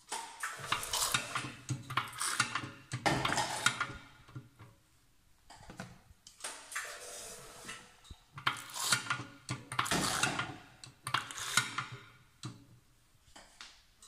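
Stainless-steel piston filling machine being worked by hand, its metal parts clacking and rattling in several bursts as filling is dispensed into a cup, with short quiet gaps between strokes.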